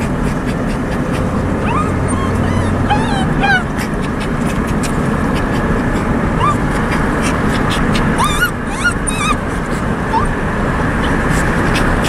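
Dog whimpering in a string of short, high squeals, over a steady rush of wind and road noise through an open car window.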